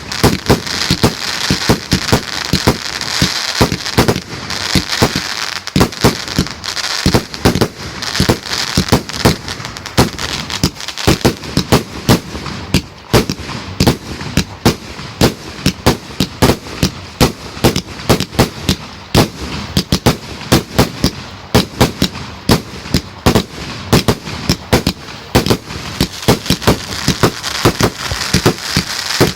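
Fireworks going off in a rapid barrage, several sharp bangs a second without a break, with crackling between them.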